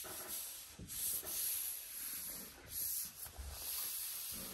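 Microfiber cloth and hand rubbing across matte vinyl on a car hood, a hissing friction sound in repeated strokes about once a second as the decal is smoothed down.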